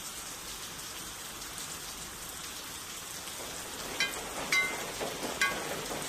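Steady rain falling and spattering. About four seconds in, a few short high-pitched blips come in over the rain, under a second apart.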